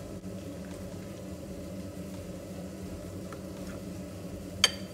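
Metal potato masher working boiled sweet potato and pumpkin in a ceramic bowl: a few faint taps, then one sharp ringing clink of the masher striking the bowl near the end, over a steady low hum.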